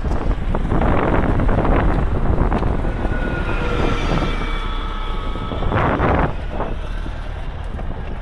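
Wind buffeting the microphone of a camera on a moving bicycle, with the rumble of riding over pavement. A thin high squeal sounds for a couple of seconds in the middle.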